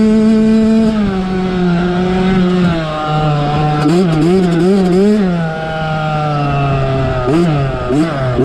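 Yamaha YZ65 two-stroke single-cylinder engine heard on board while riding, holding high revs, then easing down. Around the middle the revs rise and fall four times in quick succession, and it runs lower near the end with a couple more quick blips.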